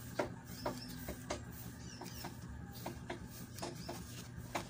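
Scissors snipping through cloth: a string of short, irregular crisp snips over a low steady hum.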